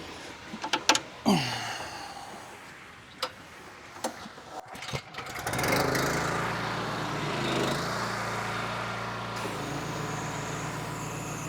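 A few sharp clicks and knocks, then about halfway through the pressure washer's Honda GX390 single-cylinder engine starts and runs steadily.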